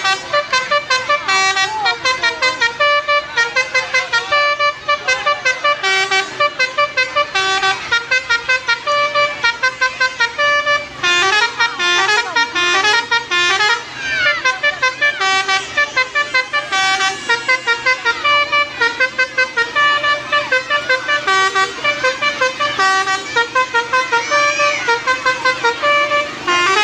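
Telolet horn, a multi-tone musical vehicle horn, tooting a tune of short notes in quick succession, over and over without a break.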